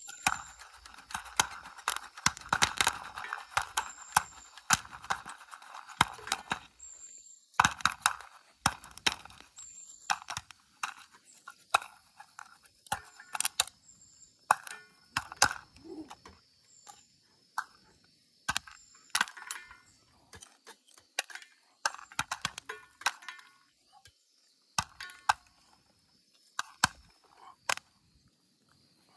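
Popcorn kernels popping and rattling inside a lidded metal antique bed warmer pan over a campfire: irregular sharp pops with metallic clinks. There is a rattling hiss through the first several seconds, as the pan is shaken.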